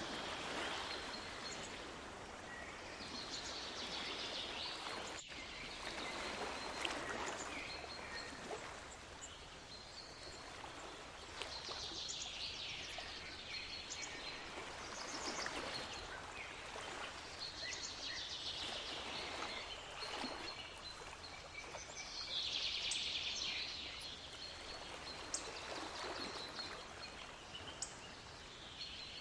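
Sea waves washing in and drawing back, swelling and fading every three to five seconds, with small birds chirping in short high notes over them.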